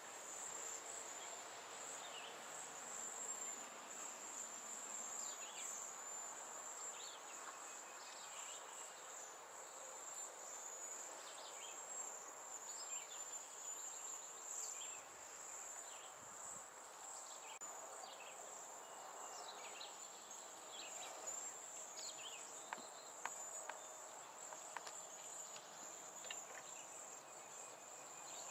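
Steady high-pitched insect trill running throughout, with scattered short, falling bird chirps over it and a few sharp clicks in the second half.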